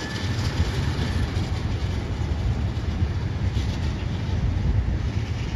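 A low-floor tram running along its tracks at a distance: a steady low rumble, mixed with wind buffeting the microphone.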